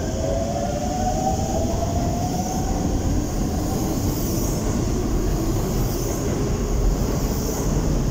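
Chiba New Town Railway 9100-series electric train pulling away: its traction motors whine in two tones that rise in pitch through the first few seconds as it accelerates, over a growing low rumble of wheels on rail.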